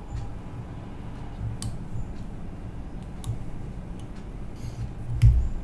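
Light handling sounds at a fly-tying vise as the thread is tied off on a jig head: a few faint ticks over a low rumble, then a louder knock about five seconds in.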